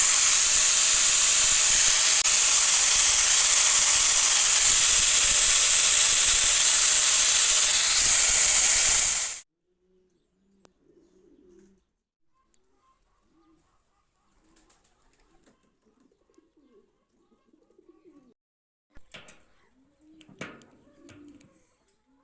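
A loud, steady hiss that cuts off suddenly about nine seconds in. Faint bird cooing and a few clicks follow.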